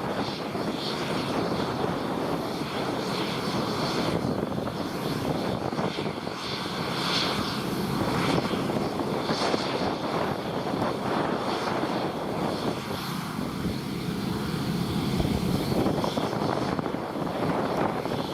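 New Holland combine harvester running steadily, a continuous drone of its engine and threshing machinery.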